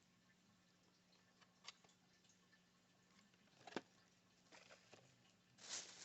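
Near silence, with a few faint clicks and taps from small objects being handled, the clearest about two seconds in and near the middle.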